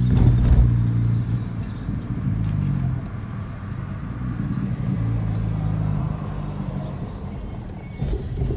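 Nissan Sentra B17 with a modified exhaust, heard from inside the cabin: a low exhaust drone whose pitch shifts as the revs rise and fall while driving, with a loud low thump just after the start. A song plays on the car stereo underneath.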